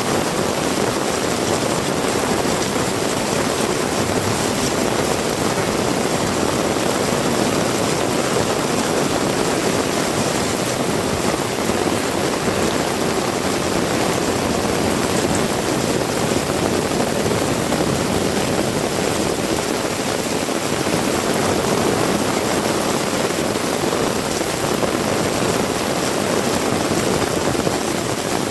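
Heavy rain falling steadily, an even unbroken rush.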